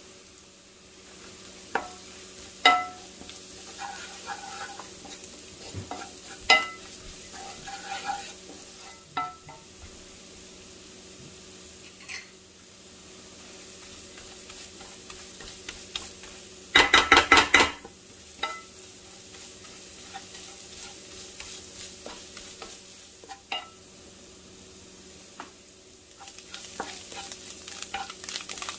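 Food sizzling in a pan while a utensil stirs it, clinking sharply against the pan every few seconds. A quick run of about eight clinks comes about two-thirds of the way through, and the crackle thickens near the end, over a steady low hum.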